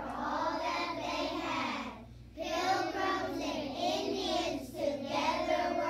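A group of young children singing a song together in unison, with a short break about two seconds in.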